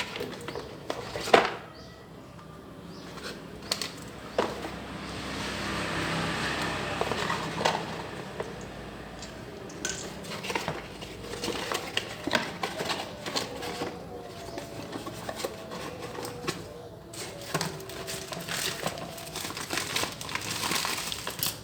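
Packaging being handled: crinkling plastic and cardboard with scattered clicks and knocks. A sharp click about a second in is the loudest.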